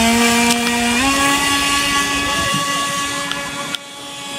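Water-cooled electric motor of an FT009 RC speedboat running at speed, a steady whine that steps up in pitch about a second in and gets quieter near the end.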